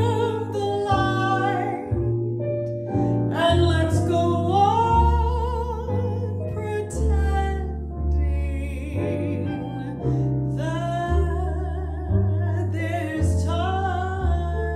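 A woman singing a slow melody with vibrato into a microphone, accompanied by a Nord Grand stage piano and an upright double bass.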